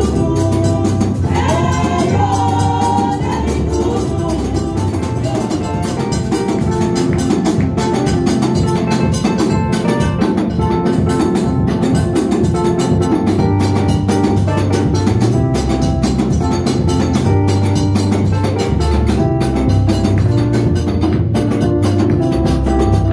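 Live church praise music: women's voices singing through microphones for the first few seconds, then the band plays on with a fast, steady drum beat and a stepping bass line.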